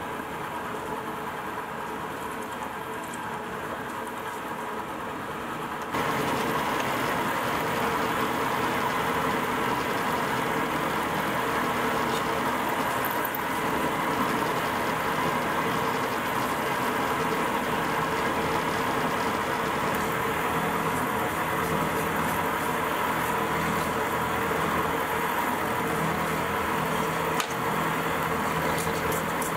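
Mini vertical mill running with an end mill cutting a slot into a mild steel block: steady machine noise with a held tone, stepping up louder about six seconds in.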